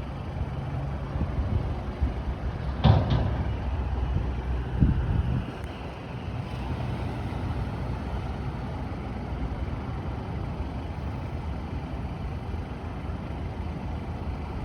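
Road traffic at an intersection: a heavy vehicle's engine rumbles through the first five seconds, with a sharp loud sound about three seconds in and another near five, then steady, quieter traffic noise.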